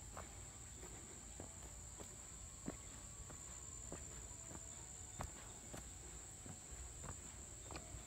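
Soft footsteps on a dirt and leaf-litter trail, irregular, about one a second, over a steady high-pitched insect drone.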